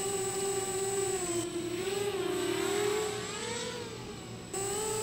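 Racing quadcopter's brushless motors and propellers buzzing at a steady pitch in flight, the pitch wavering as the throttle changes. In the middle it dips and swells more widely.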